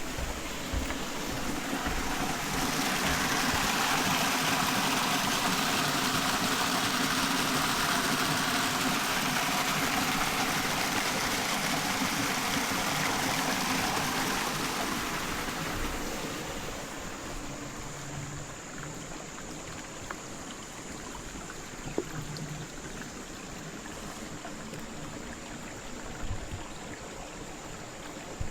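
Creek water flowing, running after heavy rain: a steady rush that swells louder for the first half, then eases to a softer, steady flow.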